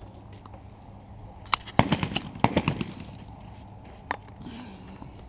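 Break-action shotgun being handled: a quick cluster of sharp metallic clicks and knocks about two seconds in, then a single click about four seconds in.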